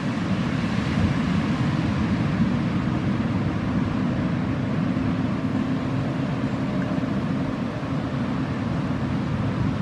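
Outboard motor of a small speedboat running under power through breaking surf: a steady low drone mixed with the rush of the waves.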